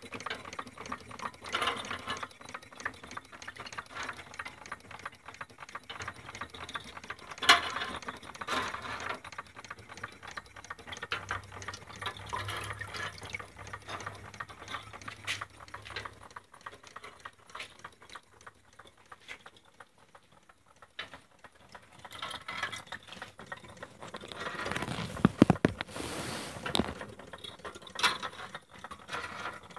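Carette tin-plate water elevator toy running: its chain of small buckets clatters steadily through the gears as they scoop water from the tank and tip it into the hopper, with water splashing and trickling back down. A sharp knock comes about seven seconds in, and a louder clatter around twenty-five seconds.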